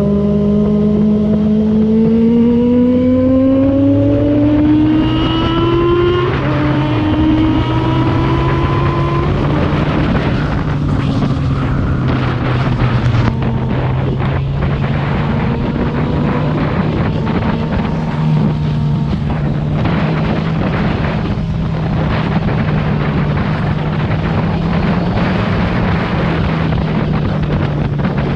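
Kawasaki Z1000R's inline-four engine with its stock exhaust accelerating hard, its pitch rising steadily, then dropping twice about four to six seconds in as it shifts up. After that it runs at a steadier speed under strong wind rush.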